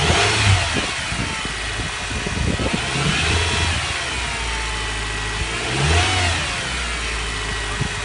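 Honda Odyssey RB1's 2.4-litre four-cylinder engine running cold, swelling briefly three times, each swell carrying a whine that rises and falls in pitch. The whine is the power steering pump's characteristic noise, strongest before the engine warms up.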